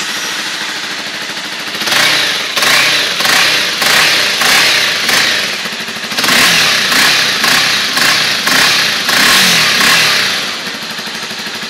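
Honda CBR 250R's single-cylinder engine running through a Roncar Coyote 2Way sport exhaust set to its quiet mode: idling, then revved in a series of quick throttle blips from about two seconds in, held up for longer revs for a few seconds, and dropping back to idle near the end.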